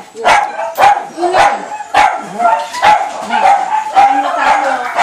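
Dogs barking noisily and repeatedly, about two sharp barks a second.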